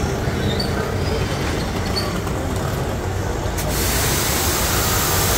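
A 4.5 HP, 200-bar electric high-pressure washer runs with a steady low hum. About three and a half seconds in, the spray gun opens and the high-pressure water jet comes on suddenly with a loud, steady hiss.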